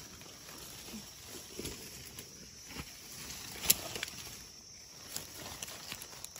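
Dry leaf litter and twigs rustling and crackling as hands push through forest-floor undergrowth, with one sharp click a little past halfway.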